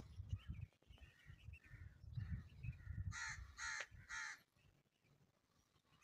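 A crow cawing three times in quick succession, about half a second apart, a little after halfway through, over a low, uneven rumble that dies away soon after the caws.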